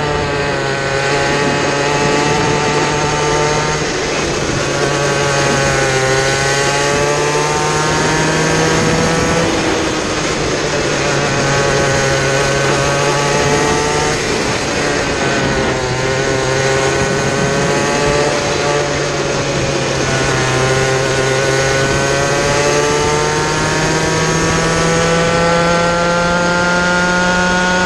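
A kid kart's small single-cylinder racing engine at full race pace, heard from on board. Its note drops as the kart slows for each corner and climbs again on the exits several times, rising steadily near the end down a straight, over a constant rush of wind and tyre noise.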